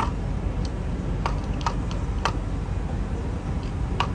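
Light sharp clicks and taps, about six or seven at uneven intervals, as a cat paws at a clear plastic cup holding ice. They are heard over a steady low rumble.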